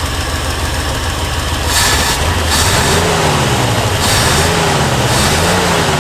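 1970s Ford F750 grain truck's carbureted engine running. From about two seconds in, its speed rises and falls about once a second, with bursts of hiss. With the ignition timing advanced, it no longer pops back through the intake.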